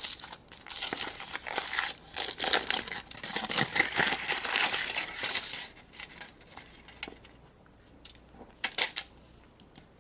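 Crinkling and tearing of a surprise egg's wrapping as it is pulled open by hand. This is followed, about six seconds in, by a few light clicks and taps of small plastic parts being handled.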